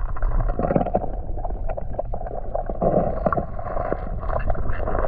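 Muffled underwater water noise from a camera held below a creek's surface: a steady low rumble and gurgle with many small scattered clicks and taps.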